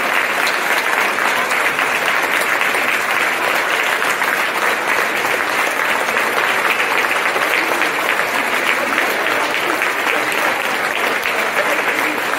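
A large audience giving sustained, steady applause, many people clapping at once, with some cheering voices mixed in.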